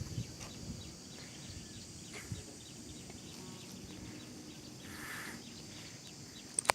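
Outdoor ambience: faint high ticks repeating a few times a second over a low, uneven rumble, with one sharp click just before the end.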